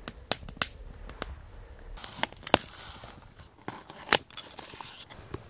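Kitchen knife chopping shallots on a wooden cutting board: a string of sharp, irregular knocks.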